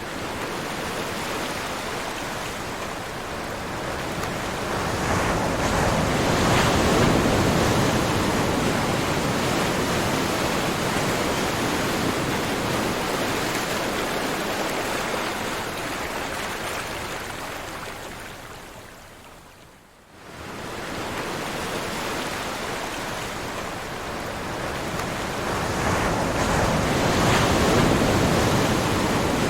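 Ocean surf: waves washing in as a steady rushing noise that swells about six seconds in and again near the end, with a brief lull about twenty seconds in.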